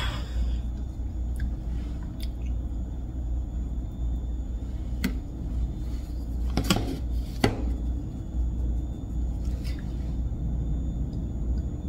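A handful of light clicks and taps from makeup tools being handled (brush and eyeshadow palette) over a low steady hum. The two taps a little past the middle are the loudest.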